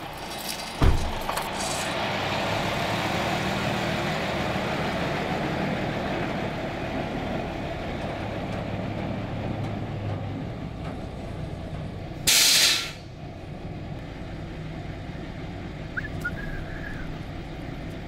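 Truck engine running steadily, loudest in the first few seconds and then slowly easing off, with a short loud hiss of the air brakes about twelve seconds in. A sharp knock sounds about a second in.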